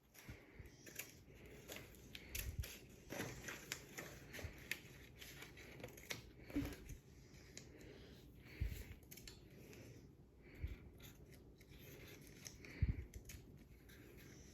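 Scissors snipping through coloured paper to cut out circles: a run of small, irregular snips and paper rustles.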